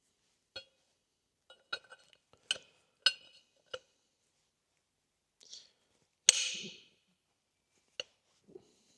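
Metal universal-joint parts and tools clinking and knocking together as they are handled on the driveshaft: a string of short ringing clinks, then a louder clatter about six seconds in, and one more clink near the end.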